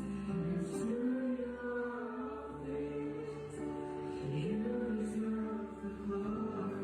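Church worship music: a group of voices singing long, slowly moving notes over instrumental backing.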